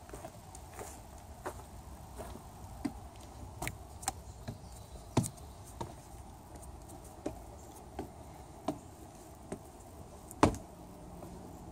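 Footsteps: a string of sharp knocks, irregularly spaced about every half second to a second, with one louder knock near the end.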